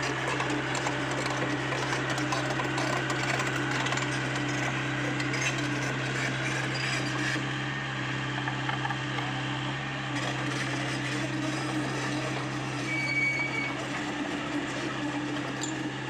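Komatsu PC75UU compact excavator working, its diesel engine running at a steady hum with a grinding, clattering mechanical noise over it.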